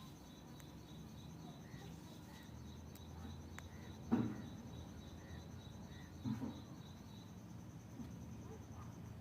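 Insects trilling steadily in a fast, even, high-pitched pulse, with a brief louder sound about four seconds in and a softer one about two seconds later.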